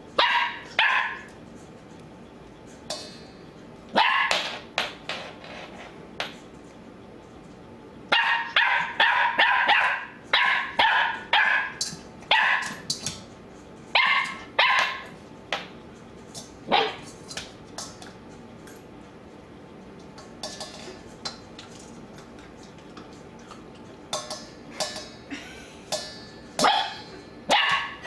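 Dog barking in bouts of several quick barks with pauses between, a nervous dog barking at her food dish.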